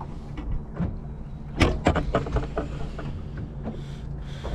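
A crappie hand-lined in and unhooked aboard a fishing boat: scattered clicks and knocks of line, fish and hands, with one sharper knock about a second and a half in, over a steady low hum.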